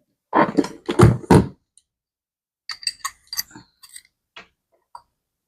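A leather bag being handled: a few dull thumps in the first second and a half, then its metal buckle hardware clinking and jingling lightly for a couple of seconds.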